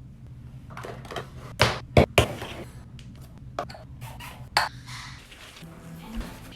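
Small objects being handled: a few sharp clicks and knocks, the loudest three coming close together about two seconds in and another near the middle, over a low steady hum.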